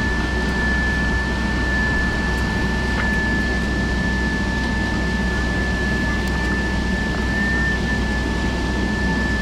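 Steady cabin noise of a Boeing 757-200 taxiing: the jet engines running at idle under a low rumble and air hiss, with a constant high-pitched whine.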